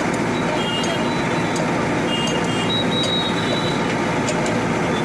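Steady road traffic noise with a few faint, brief high tones.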